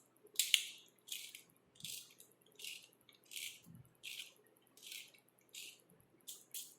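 Black peppercorns being ground in a hand pepper mill: about ten short, crisp crunching strokes, roughly one and a half a second, in an even rhythm.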